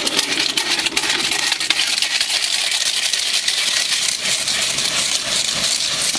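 Rice grains puffing into muri in hot sand in a clay pot: a dense, steady crackle of popping grains and rattling sand as they are stirred with a bundle of sticks.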